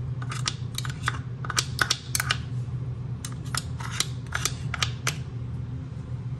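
Metal spoon scraping and tapping against a blender's blade assembly, scraping out leftover cream in quick, irregular clicks and scrapes, over a steady low hum.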